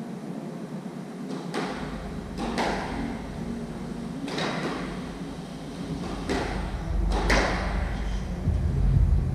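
About five sharp knocks a second or two apart, each ringing on in a squash court's hard walls, over a low rumble that starts about two seconds in and grows louder near the end.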